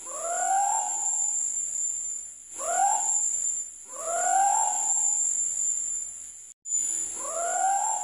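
Scops owl (celepuk) calling: four short hoots, each rising in pitch and lasting about a second, repeated every couple of seconds. A steady high insect trill runs underneath.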